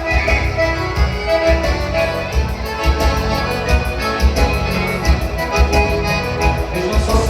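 Music with a steady beat and a held, sustained melody.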